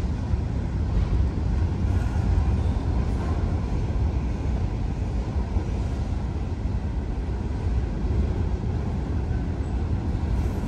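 Freight cars of a long train rolling past at steady speed: an even, low rumble of steel wheels on rail with no breaks.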